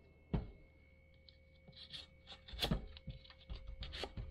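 Plastic clicks and knocks from handling a Minelab CTX 3030 metal detector's arm cuff and fitting it onto the shaft: a sharp knock about a third of a second in, another near the middle, and a cluster of lighter clicks near the end. A faint steady high tone comes in near the start and holds.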